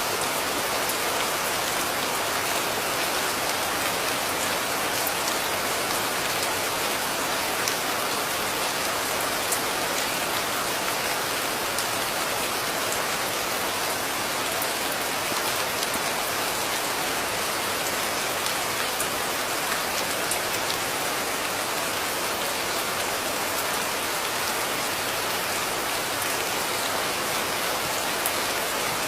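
Steady heavy rain falling, with an even hiss and occasional individual drops ticking through it.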